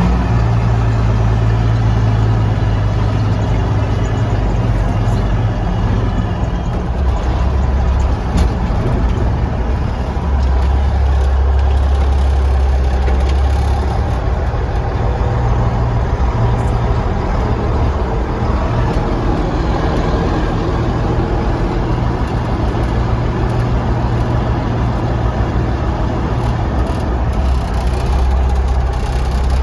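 Mack B-61 truck's diesel engine running under way, its low drone shifting in pitch a few times as the truck changes speed. The engine has a freshly repaired injection pump.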